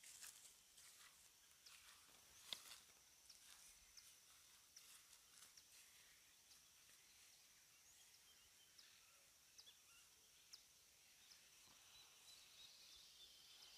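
Near silence: faint outdoor ambience with scattered soft ticks, a faint steady high tone and a few short high chirps that grow a little more frequent near the end.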